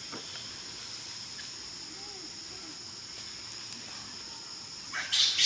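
Steady high-pitched drone of insects, with a short, loud, high-pitched cry near the end.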